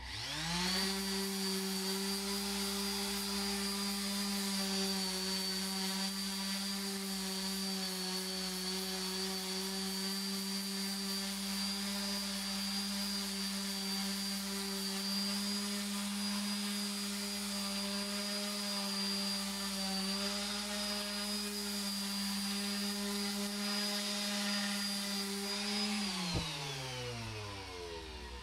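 Milwaukee random orbital sander starting up and running steadily while sanding filler off a wooden newel post. Near the end it is switched off and winds down with a falling whine.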